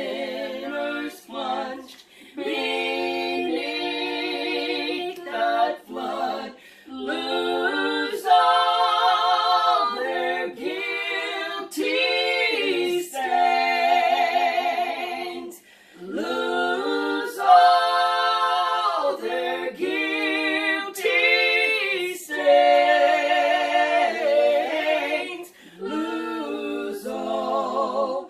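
Women's voices singing a worship song together a cappella, in sustained phrases a few seconds long with short breaks for breath between.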